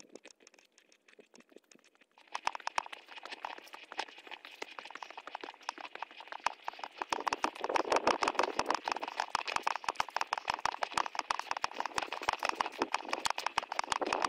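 Footsteps and rustling of someone walking briskly through grass, a quick run of crunching taps that starts about two seconds in and grows louder from about seven seconds in.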